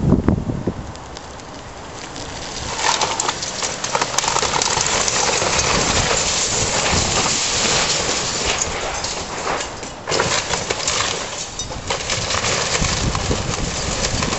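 Building being torn down by an excavator: a dense crackle of timber cracking and splintering and debris crashing down. It builds about three seconds in, eases briefly near ten seconds, then picks up again.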